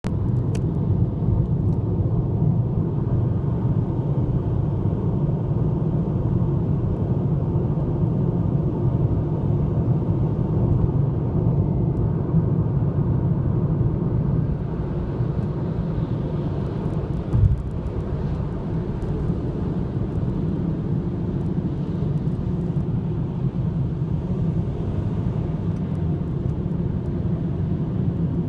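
Steady road and engine rumble of a car driving at expressway speed, heard from inside the cabin. One brief thump about two-thirds of the way through.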